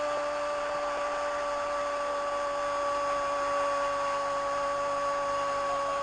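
Stadium crowd after a goal: a steady, even roar with a constant tone running through it.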